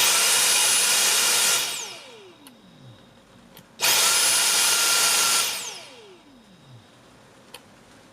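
Dyson DC45 cordless stick vacuum's motor starting with a high whine, cutting out after about a second and a half and spinning down with a falling whine, twice. This is the cutting-out that the owner puts down to a battery that is probably no good.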